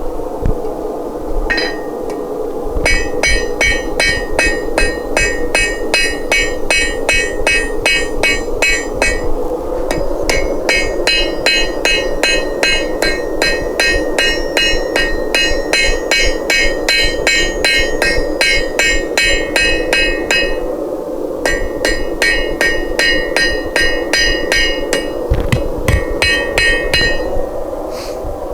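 Hand hammer striking hot steel on an anvil in quick, steady runs, drawing out the tapered stem of a forged leaf; each blow gives a bright metallic ring. The hammering comes in three long runs, with short pauses about nine seconds in and about twenty-one seconds in, over a steady background drone.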